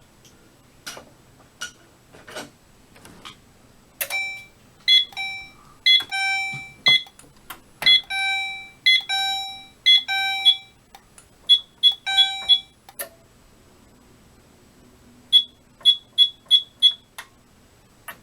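A few clicks, then fire alarm horns sounding in overlapping short and longer electronic blasts for about nine seconds before cutting off as the system is reset. A few seconds later come five quick high beeps.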